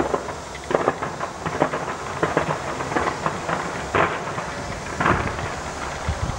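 Fireworks bursting in a rapid, irregular string of bangs and crackles, with the loudest bangs at the start and about four and five seconds in.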